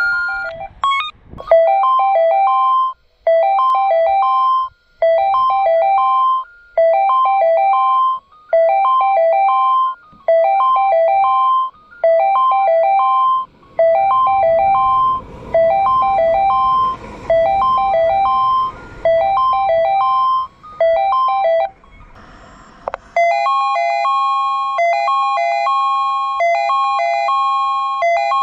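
Tobu Railway platform approach-warning chime, a short figure of several notes repeating about every second and three-quarters, announcing an arriving or passing train. A low train rumble swells under it in the latter half. About 23 seconds in it gives way to a different warning chime, two tones repeating steadily.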